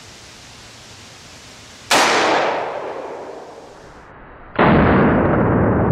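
A single .357 Magnum shot from a 3-inch Ruger GP100 revolver: a sharp crack about two seconds in that dies away over about two seconds. Near the end a loud, steady rushing noise starts suddenly.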